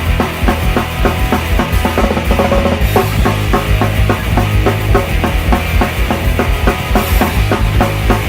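Fast melodic punk rock instrumental: quick, driving drums with distorted electric guitars and bass.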